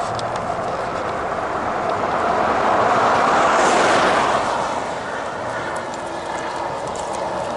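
A vehicle passing on the road: a rushing noise that grows louder to a peak about three and a half seconds in, then fades away.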